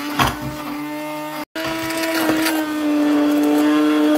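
Hand-held immersion blender running in a stainless steel saucepan of thick lemon cream, its motor humming steadily, with a few knocks against the pan. The sound breaks off for an instant about a second and a half in.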